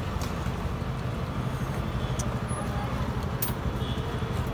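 Steady city street traffic noise, with a vehicle engine running nearby as a constant low hum.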